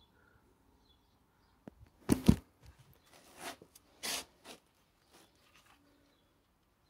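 Handling noise close to the microphone: two loud knocks about two seconds in, then rustling and scraping as the camera is moved and its lens covered.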